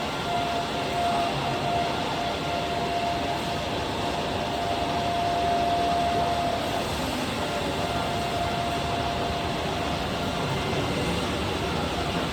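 Bacci T4MO CNC woodworking machine running: a steady whine over a continuous rushing noise, the whine breaking off briefly about seven seconds in and stopping a few seconds later.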